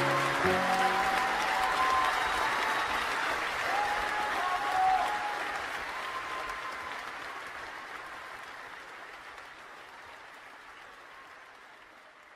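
Crowd of guests applauding, fading out steadily, with the last notes of music ending about half a second in.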